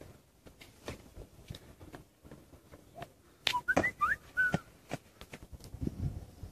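Scattered taps and footfalls as a man walks the balance-beam obstacle and jumps down. About three and a half seconds in, the loudest part: a few sharp knocks with a brief run of high whistle-like chirps.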